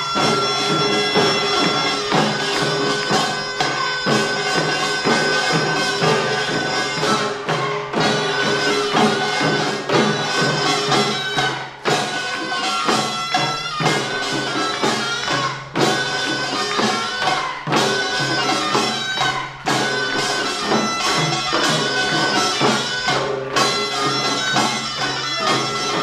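Korean farmers' band (pungmul) music: a taepyeongso, a loud double-reed shawm, plays a held melody over fast, continuous drumming on sogo hand drums and other percussion.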